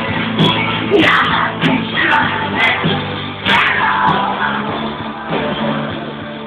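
Live pop-rock band playing loud through a concert PA, with sung vocals over guitars, recorded from the audience.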